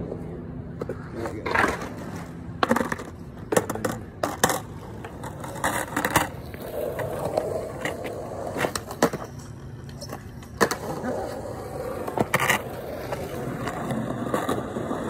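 Skateboard rolling over concrete, with repeated sharp clacks and knocks of the board and trucks hitting the ground every second or two.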